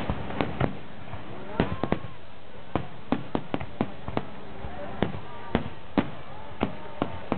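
Aerial fireworks bursting: a quick irregular volley of sharp bangs, about eighteen in all, some in tight clusters, each with a brief echo.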